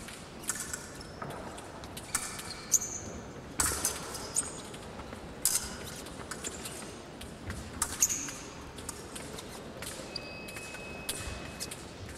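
Épée blades striking and scraping: scattered sharp metallic clicks, each ringing briefly and high, with thuds of footwork on the piste. Near the end a thin steady beep lasts about a second.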